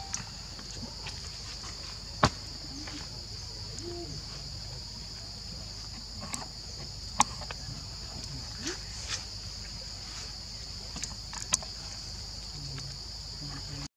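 Steady, high-pitched chorus of insects chirring in the forest, with three sharp clicks spread a few seconds apart.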